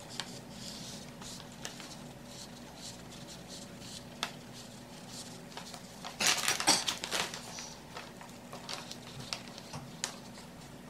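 Plastic sheeting and cardboard rustling and crinkling as fabric-covered trim panels are handled and pressed down, with scattered small taps and a louder burst of crinkling about six seconds in. A faint steady hum runs underneath.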